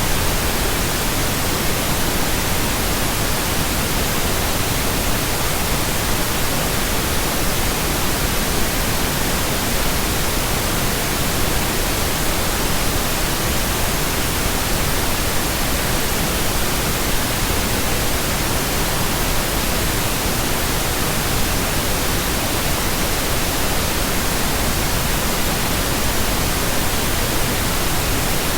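Steady, unchanging pink noise: an even electronic hiss spread across all pitches, generated as an audio track.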